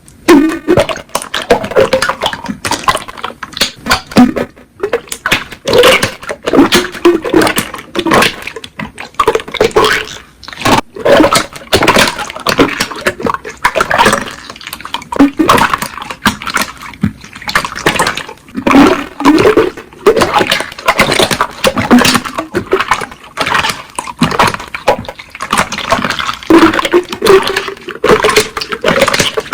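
Hands squeezing, stretching and poking slime: a continuous stream of wet clicks, crackles and squelching air-pocket pops.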